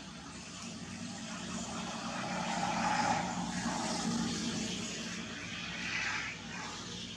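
A passing motor vehicle, its engine and road noise swelling to a peak about three seconds in, with a second smaller swell near the end.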